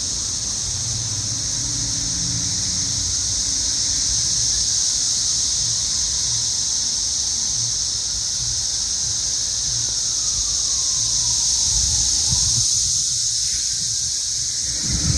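A dense chorus of cicadas: a loud, steady, high-pitched drone that holds without a break.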